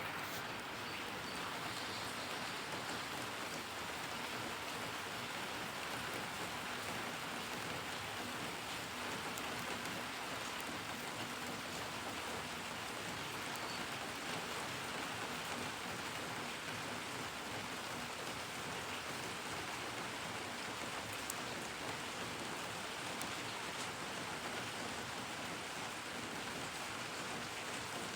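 Steady rain falling, an even hiss of drops on surfaces without pause or change.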